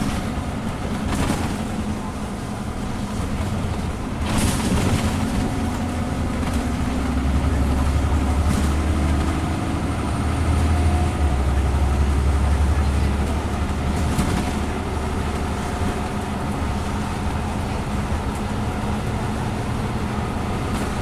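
Inside the cabin of a Scania N94UB Omnicity bus on the move: the diesel engine and ZF Ecomat automatic gearbox run with a steady low drone over road noise, the pitch climbing a little in the middle, with a few short knocks and rattles.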